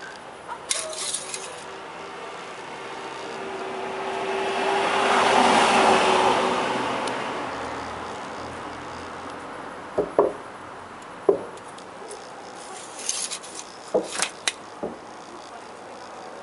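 A vehicle passing by, its noise swelling over a few seconds and fading away, followed by several sharp knocks and clicks.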